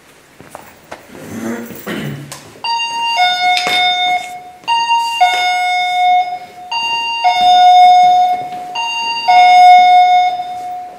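Motion-detector alarm chiming a two-note electronic ding-dong, a short high note then a longer lower one, four times about two seconds apart starting a few seconds in: a floor motion sensor has been set off. A few soft knocks come before it.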